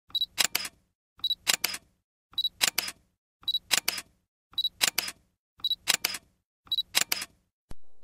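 Camera shutter sound effect repeated seven times, about once a second, each a short high beep followed by quick shutter clicks. A single click follows near the end.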